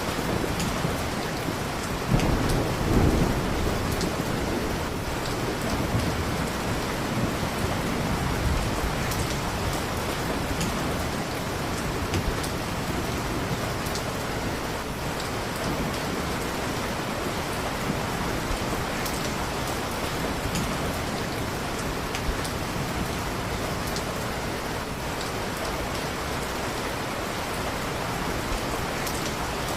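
Steady heavy rain with a low rumble of thunder about two seconds in, fading over a second or two. Scattered sharp ticks sound over the rain throughout.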